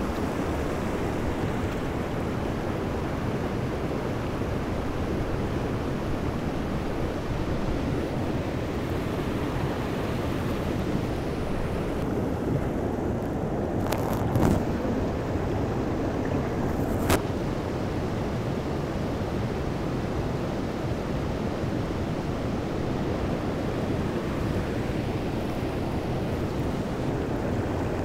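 Mountain stream water rushing steadily, with two sharp clicks a few seconds apart near the middle.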